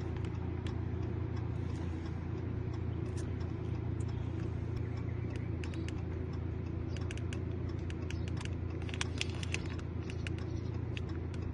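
Steady low hum of an idling vehicle engine, with scattered light clicks and taps, more of them in the second half.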